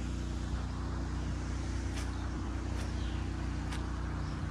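Water pump running steadily under load, draining a pond at about 900 litres a minute: an even, unchanging drone with a hiss over it.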